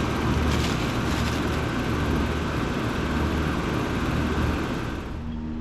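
Running central air conditioner condensers: the steady rush of the condenser fan over a low compressor hum, with a faint high steady whine. The sound drops off about five seconds in.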